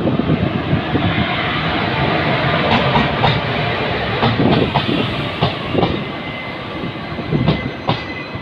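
Passenger train coaches rolling through a station with a steady rumble, the wheels clacking over rail joints in repeated sharp clicks.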